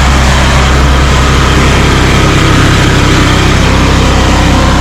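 Stump grinder's engine running loud and steady while grinding out palm stumps.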